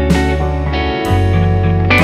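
Background music: guitar chords struck about once a second over a steady bass line.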